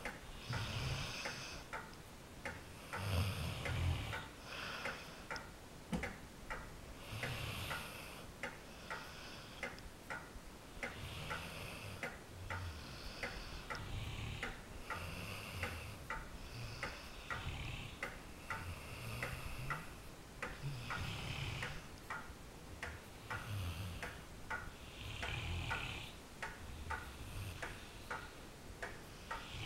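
A sleeping dog breathing slowly and deeply, with soft snoring breaths every few seconds, over a steady, even ticking throughout.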